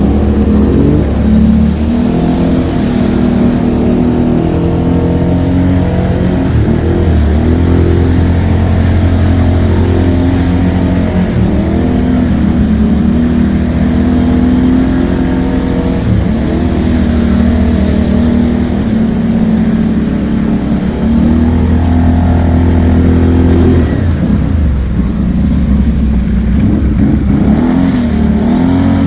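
ATV engine running hard through deep water on a flooded trail, revs rising and falling repeatedly, with water spraying and splashing from the tyres.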